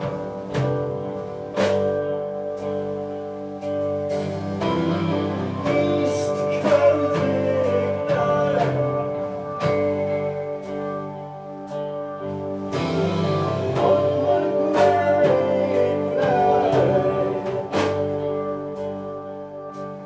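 Live rock band playing: drums with repeated cymbal and snare hits under sustained, distorted guitar and bass chords, with a voice singing over it in stretches.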